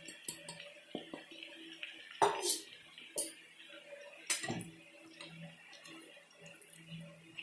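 Steel spoon knocking and scraping against a steel bowl as crumbly ground muthiya is tipped in and stirred: a few separate clinks and scrapes, the loudest about two seconds in and again about four seconds in, over a faint steady hum.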